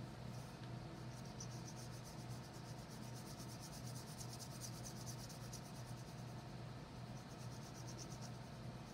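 Blue wax crayon shading rapidly back and forth on paper: a quick, even, scratchy rhythm of several strokes a second that starts about a second in and stops near the end, over a low steady hum.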